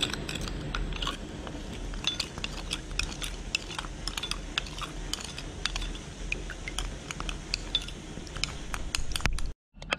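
Wooden spoon stirring sauce in a small glass bowl, clicking and scraping against the glass in quick, irregular taps. It cuts off suddenly near the end.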